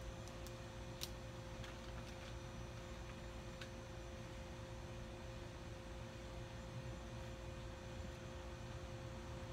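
Steady hum with two faint unchanging tones over a low rumble, like a machine running nearby, with a few faint clicks in the first few seconds.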